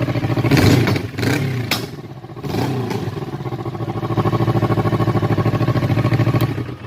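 Kawasaki Versys 650's parallel-twin engine running: a few quick throttle blips in the first three seconds, then a steady, even idle.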